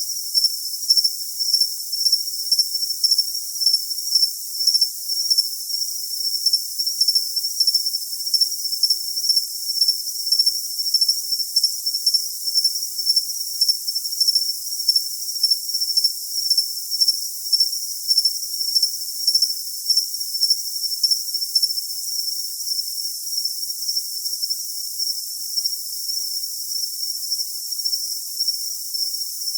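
Cricket chirping: a continuous high-pitched trill that pulses in a steady rhythm.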